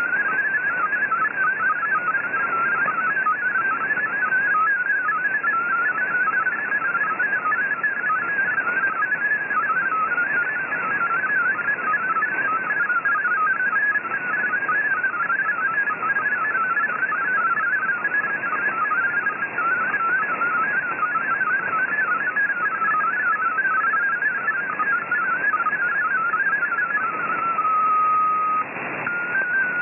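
MFSK32 digital data signal received on shortwave: a rapid, high warble of short hopping tones over steady static hiss. Near the end the warble stops for a single steady tone about a second long as the transmission switches to MFSK64, and then hopping tones start again.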